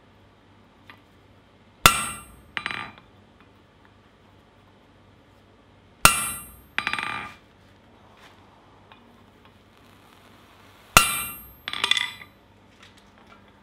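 Hammer striking a hand-held stamp into red-hot steel on an anvil, pressing an eye impression. There are three hard, ringing metallic blows about four to five seconds apart, each followed by a lighter second strike.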